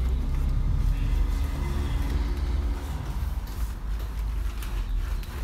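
A low, steady motor rumble with a hum of several steady tones, strongest in the first three seconds.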